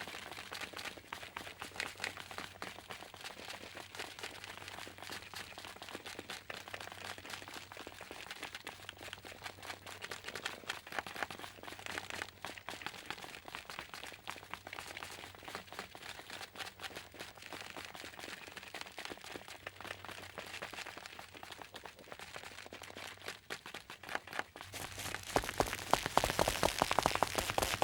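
Footsteps: a long, dense run of sharp steps that grows louder about three seconds before the end.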